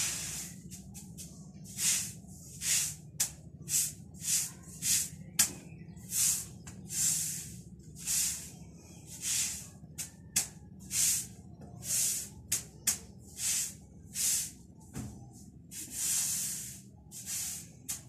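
Rosy-faced lovebirds at the nest hissing in short, irregular bursts, about one or two a second, over a steady low hum.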